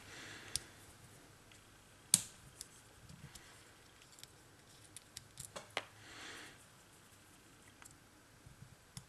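Sparse, faint metallic clicks and ticks of a hex key working screws loose in an airsoft gun's body, with one sharper click about two seconds in and a small cluster of clicks a little past five seconds.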